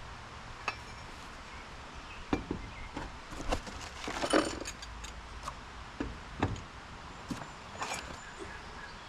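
Heavy-duty caster wheels of a metal mobile workbench being handled: a scatter of irregular clicks and knocks, the loudest about four seconds in.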